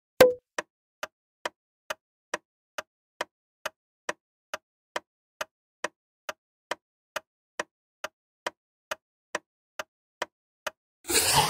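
Countdown-timer ticking sound effect: a pop at the start, then steady clock-like ticks about two a second. Near the end a short, louder sound-effect burst cuts in as the timer runs out.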